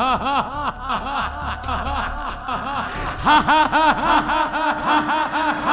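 A man's loud theatrical laughter, a rapid run of 'ha-ha-ha' syllables about five a second. From about three seconds in it runs over a sustained musical note.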